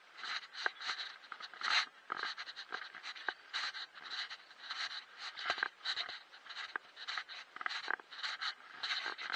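Footsteps crunching and scuffing on dry grass and leaf litter, with rustling close to the microphone, in quick, irregular scrapes and a few sharp clicks.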